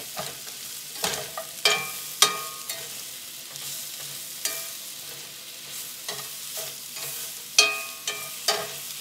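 Sliced mushrooms and minced garlic sizzling in a hot cast-iron skillet while a slotted metal spatula stirs them, scraping and clinking against the pan every second or so. The loudest clinks come a little under two seconds in and again near the end.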